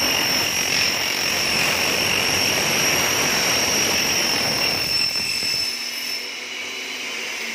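Twin-head aluminium cutting saw, built on Hitachi 380 mm saw heads, running and cutting aluminium profile in automatic mode: a dense, steady cutting noise over a high blade whine. About five and a half seconds in, the heavy cutting noise drops away and the blades keep whining as the cut finishes.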